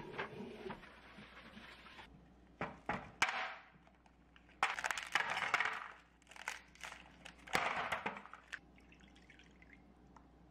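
Round ice balls knocked out of a plastic ice-ball tray, clattering and clinking into a plastic tub in several rattles, the longest about halfway through.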